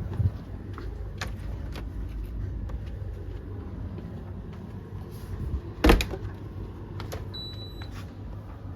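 Three tumble dryers running together: a steady low rumble from the turning drums, with scattered clicks and one loud knock about six seconds in as the load tumbles. A short high tone sounds briefly a little after seven seconds.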